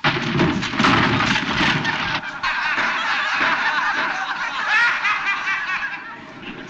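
A sudden thump at the very start, then several seconds of snickering laughter from several voices, fading near the end.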